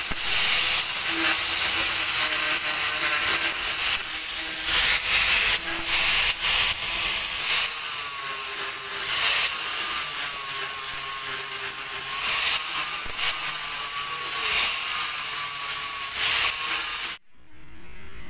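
Hand-held electric angle grinder grinding the steel rim of a Honda Activa face drive, a harsh scraping hiss over the motor's whine, which dips in pitch and recovers as the disc is pressed into the metal. It stops abruptly near the end.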